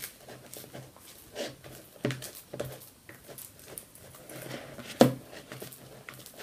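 Spatula stirring a glue and shaving-foam slime mixture in a plastic bowl: irregular scrapes and taps against the bowl, with a sharp knock about five seconds in.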